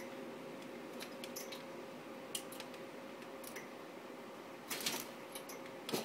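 Scattered light metallic clicks and taps of a lovebird moving about on the wire grate of its cage, with a quicker cluster about five seconds in, over a faint steady hum.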